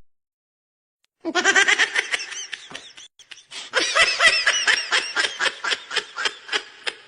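A person laughing: a long run of quick, high-pitched 'ha-ha' bursts, about four a second, starting about a second in and breaking off briefly midway before going on.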